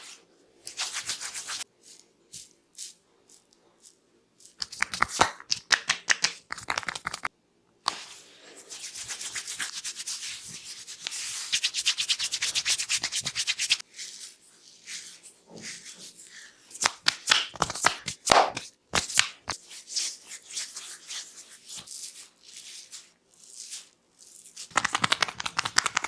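Hands giving a close-miked Indian head and neck massage: fast rubbing and scratching strokes on skin and hair, in spells separated by short pauses. Now and then a sharp crack of the neck being manipulated cuts through.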